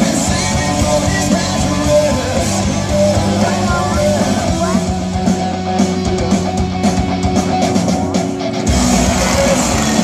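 Loud rock music with electric guitar playing at a show. The deep bass drops away about halfway through and comes back in near the end.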